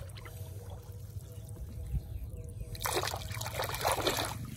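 A hand splashing and sloshing in shallow rice-field water while feeling for a crab, with a burst of splashing from about three seconds in to just past four seconds.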